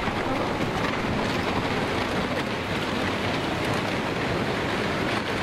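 A torrent of floodwater rushing through a street with a steady, heavy rushing noise.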